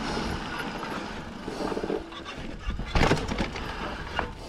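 Mountain bike rolling slowly over a dirt trail: tyres crunching on dirt with rattles from the bike, and a sharp knock about three seconds in.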